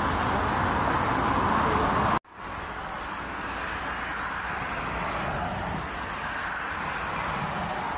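Loud, steady jet engine noise of an Airbus A380 rolling along the runway; it cuts off abruptly about two seconds in and gives way to quieter, steady jet engine noise of a twin-engine airliner on final approach.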